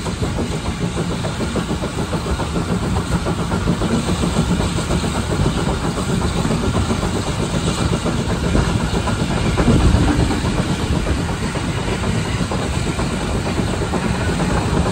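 A train running along the track: a steady rumble of wheels on rail, growing a little louder about ten seconds in.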